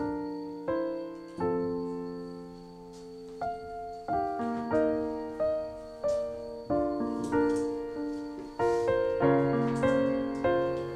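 Background piano music: slow chords and single notes struck one after another, each ringing and fading before the next.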